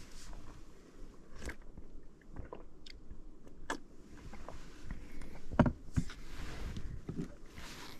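Close, scattered clicks, knocks and rustles of small objects being handled, with one louder knock about five and a half seconds in.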